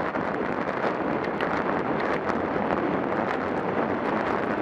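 Wind rushing over the microphone of a camera on a road bicycle rolling at about 25 mph, a steady rush with scattered faint ticks.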